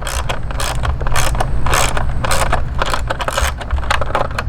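Hand ratchet clicking in short, repeated runs as T25 Torx screws are backed out of the turn-signal housing, over a steady low rumble.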